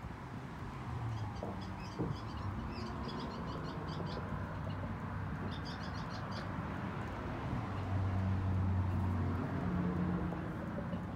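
A small bird chirping in two quick runs of short, high notes in the first half, over steady outdoor background noise. A low hum comes up about eight seconds in.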